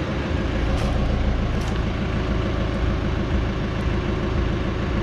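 2016 Chevrolet Colorado's 2.8L Duramax four-cylinder turbodiesel idling steadily just after start-up, heard at the tailpipe of a freshly fitted Magnaflow 3.5-inch Black Series filter-back exhaust. The note is mild and close to stock.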